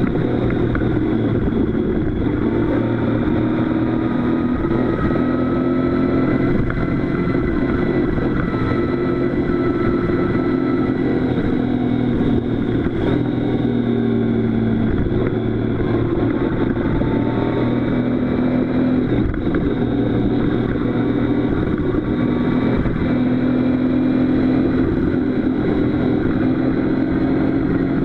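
Motorcycle engine running steadily while the bike is under way, its pitch rising and falling slightly with the throttle, recorded from a camera mounted on the bike.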